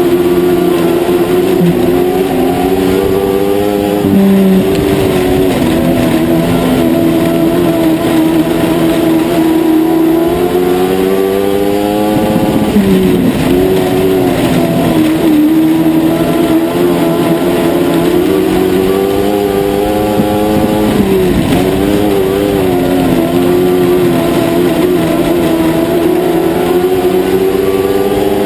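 A dwarf race car's motorcycle-derived engine running hard at full race pace. Its pitch climbs slowly down each straight and drops sharply about every eight seconds as the car goes into a turn, lap after lap.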